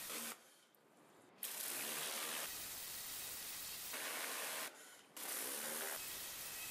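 Kärcher K2 Silent pressure washer spraying through a cyclone jet nozzle: a steady hiss of water with a faint hum underneath. It cuts out shortly after the start and returns about a second later, then drops out again briefly around the middle, as the trigger is let go and pulled again.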